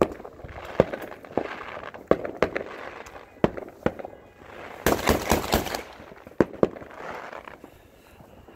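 Fireworks going off: a dozen or so sharp bangs at uneven intervals, and a rapid string of crackling pops lasting about a second, some five seconds in.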